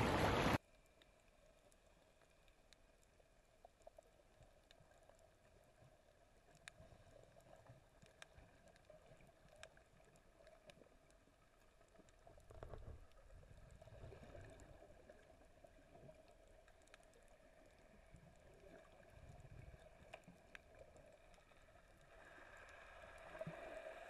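Muffled underwater sound from a camera held below the surface while snorkeling. It is a faint watery hush with scattered sharp clicks and a few low swishes of water movement. A louder open-air sound cuts off abruptly about half a second in.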